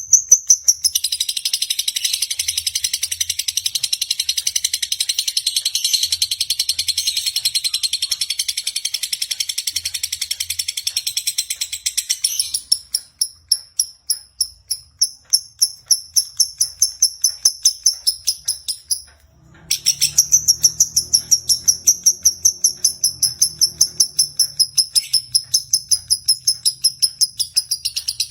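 Lovebird singing its long, rapid, high-pitched chattering trill (ngekek) almost without pause, with one brief break a little past two-thirds of the way in. This non-stop delivery is the 'konslet' style prized in Indonesian lovebird contests.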